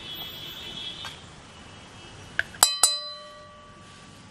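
A metal spoon tapped twice, quickly, against the rim of a stainless steel mixing bowl, knocking off corn flour. Each tap gives a sharp clink, and the bowl rings on for about a second.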